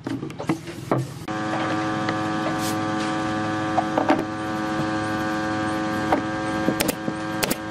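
A steady electrical or motor hum with several pitched tones starts suddenly about a second in and holds at an even level. Light knocks of wood on wood sound over it as a batten is set against the panel.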